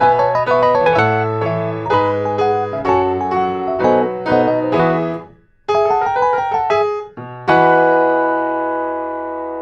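Piano playing a flowing run of notes without singing, breaking off briefly about five seconds in, then a short phrase and a chord struck about seven and a half seconds in and left to ring and fade.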